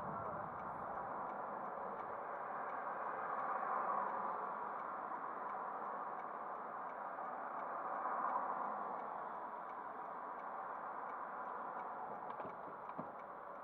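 Steady traffic noise heard from inside a car standing still, swelling a little about four and eight seconds in as cars pass.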